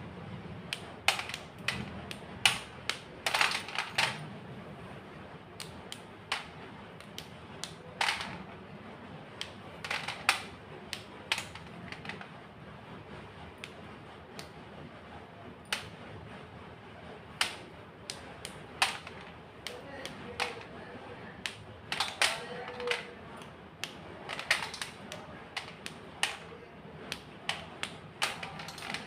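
White gym chalk being crushed: irregular sharp crunches and snaps, some single and some in short crackling runs.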